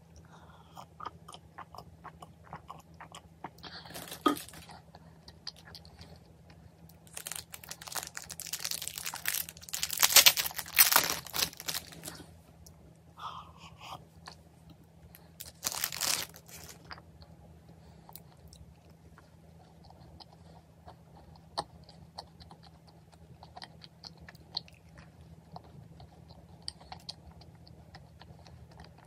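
Clear plastic wrapper crinkling loudly for several seconds as a macaron is taken out of it, with shorter rustles before and after. Then soft, quiet chewing of the macaron.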